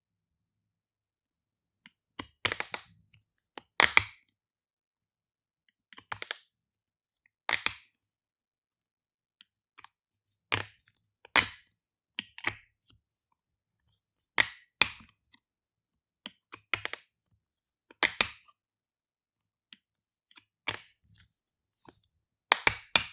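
Flip-top cap of a plastic shampoo bottle being snapped open and shut over and over, sharp plastic clicks and snaps in small clusters every second or two, with silence between.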